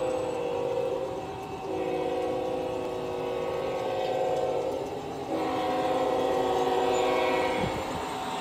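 Sound-equipped G scale model diesel locomotive sounding its multi-tone chord horn through its onboard speaker. One blast is already sounding and cuts off about a second in, then two longer blasts follow, each lasting three to four seconds. The train's running sound carries on steadily underneath.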